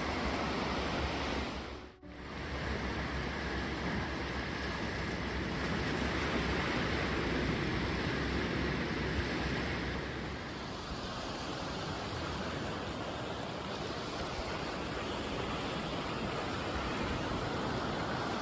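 Sea waves washing on the shore: a steady rush that briefly drops away about two seconds in.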